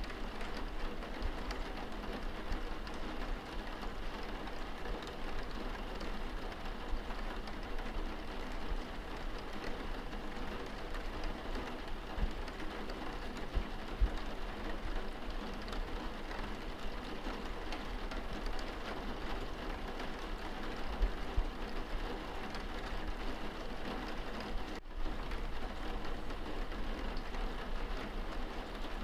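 Steady rain pattering on a window, heard from inside the room, with a few soft low thumps and a momentary gap about three-quarters of the way through.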